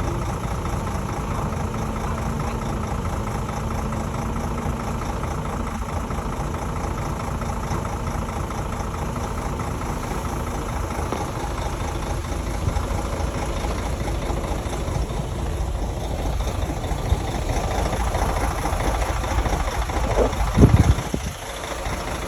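Bulldozer's heavy diesel engine running steadily, with a short loud burst near the end.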